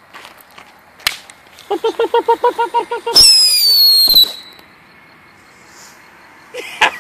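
Small ground firework going off: a sharp pop about a second in, then a rapid pulsing buzz of about seven beats a second, then a loud whistle that falls slightly in pitch and cuts off after about a second.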